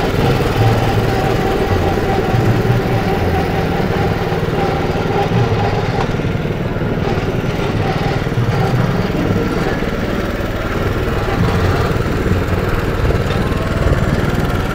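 Simplicity Wonder Boy riding mower, fitted with a replacement Honda engine, running steadily while it is driven along in low gear.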